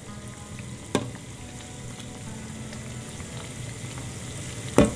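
Kachoris deep-frying in oil in a steel kadai on gentle heat, a steady sizzle of small bubbles. A perforated steel spoon turning them clinks against the pan once about a second in, and more loudly near the end.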